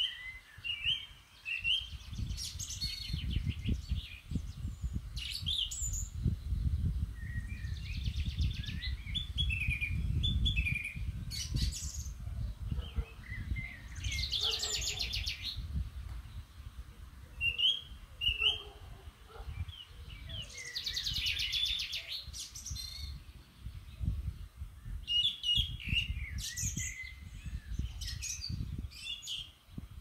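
Songbirds singing short, repeated phrases every few seconds, some ending in a buzzy trill, over a gusting low rumble.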